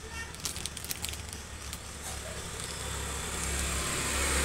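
Crisp plastic packaging crinkling as it is handled, over a steady low engine rumble that grows louder toward the end, like a motor vehicle drawing near.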